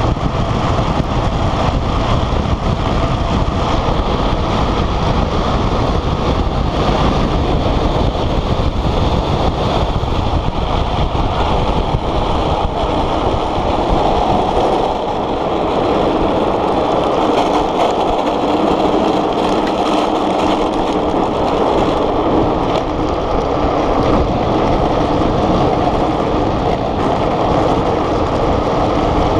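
Steady rush of wind over the microphone mixed with the roll of small wheels on asphalt as an engineless gravity speed trike descends a road at speed. The noise shifts a little about fifteen seconds in.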